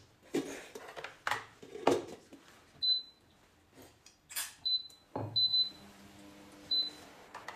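Four short, high beeps from a digital kitchen scale, among a series of knocks and handling sounds as things are set down and moved on it.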